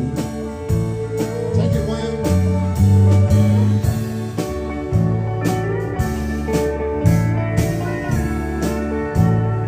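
Live country band playing a slow song: electric bass notes under a steady drum-kit beat, with pedal steel guitar sliding between notes near the end.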